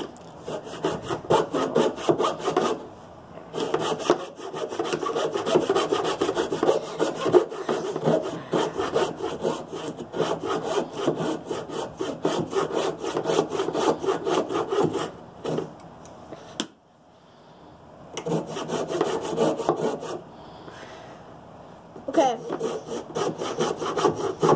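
Coping saw cutting through a pine block in quick back-and-forth strokes, stopping twice for a few seconds and starting again.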